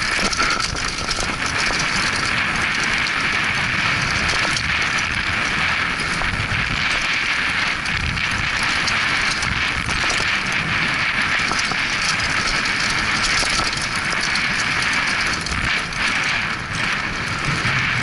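Mountain bike descending a dry, loose dirt trail: a steady rush of tyres rolling over dirt and stones, with many small rattles and knocks from the bike and wind noise on the handlebar-mounted camera.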